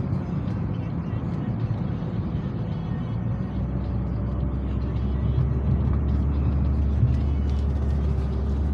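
Car engine and tyre noise heard from inside the cabin while driving, a steady low rumble that deepens and grows a little louder about halfway through.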